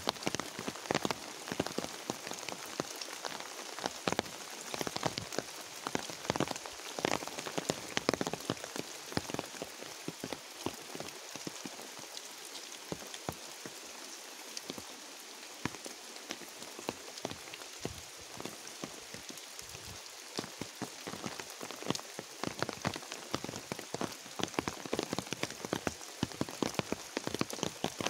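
Steady rainfall: an even hiss with many distinct, close drop hits scattered through it.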